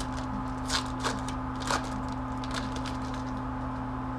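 Hockey card packs and cards being handled: a few short, sharp crinkles and snaps, mostly in the first two and a half seconds, over a steady low hum.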